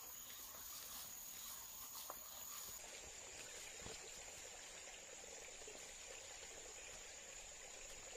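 Faint outdoor ambience with a steady, high-pitched insect tone and a couple of soft ticks.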